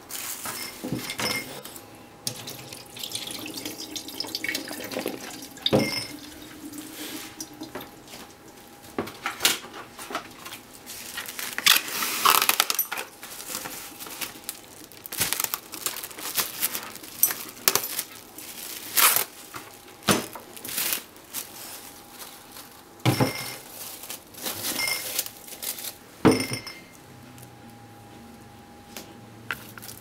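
Water splashing and pouring as potato chunks in a plastic bowl are drained in a kitchen sink, with knocks of the bowl against the sink, then crinkling of plastic cling film being pulled and stretched over the bowl. The sounds come in short stop-start bursts.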